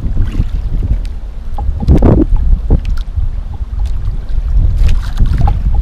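Wind rumbling on the microphone over water lapping against the hull of an outrigger bangka, with a few light knocks.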